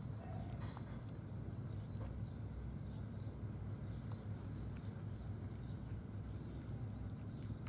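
A cat crunching dry food, heard as a few faint clicks, over a low steady rumble. Small birds chirp in the background.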